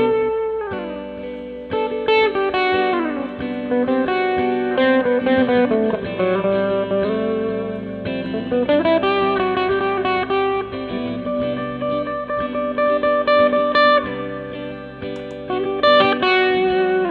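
PRS Hollowbody II electric guitar played through an amp with delay and boost pedals (TC Electronic Flashback 2, Koko Boost, Xotic AC Booster): melodic lead lines with notes sliding down and up over held lower notes.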